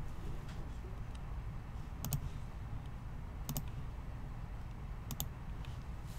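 Sharp clicks in quick pairs, three times, over a low steady hum.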